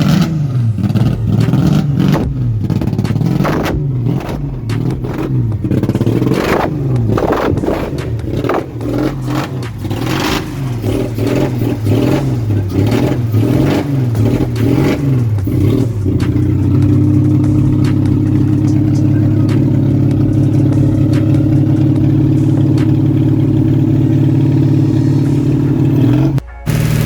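Car engine revved over and over, its pitch rising and falling about once a second, then held at steady high revs for the last ten seconds or so.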